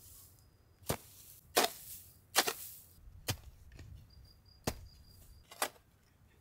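A blade chopping, about seven sharp strikes at an uneven pace, some with a brief rasp after the hit.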